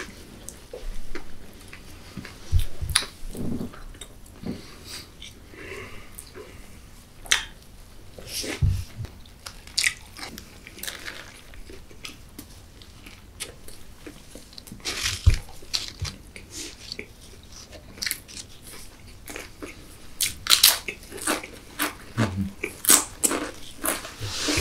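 Close-miked biting and chewing of crispy fried-chicken burgers stacked with Doritos tortilla chips: irregular crunches and chewing clicks, coming thicker and louder near the end.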